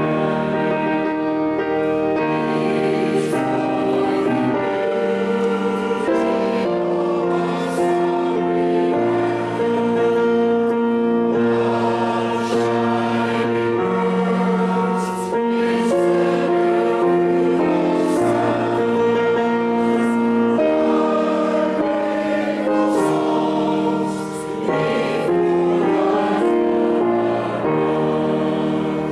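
Choir singing in slow, sustained chords that change every second or two.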